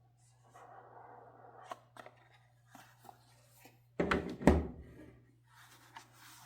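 Hands handling the watch's box and packaging: soft rustling with a few sharp clicks. About four seconds in comes a loud double thunk, as of the box or its lid being set down.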